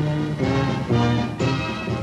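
Music playing held chords that change about every half second.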